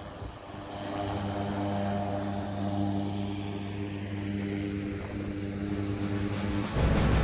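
Propeller engine of a single-engine skydiving plane running steadily on the ground, a steady drone that grows louder about a second in. Music comes in near the end.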